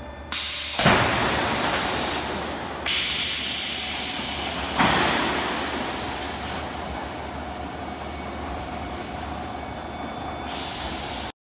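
Trapezoidal sheet roll forming line running: a loud, hissing mechanical rush that jumps up suddenly four times in the first five seconds, easing off after each jump. It then runs steadily and cuts off abruptly near the end.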